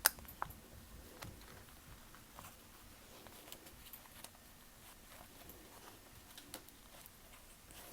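Faint rustling and small clicks of plastic binder pocket sheets as small evenweave fabric samples are slid into their cells, one sharper click at the very start.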